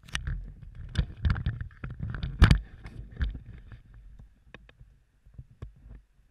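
Close handling noise on a camera as it is fitted to the head: a string of knocks, rubs and clicks over a low rumble, the loudest knock about two and a half seconds in, thinning to a few sparse clicks after about four seconds.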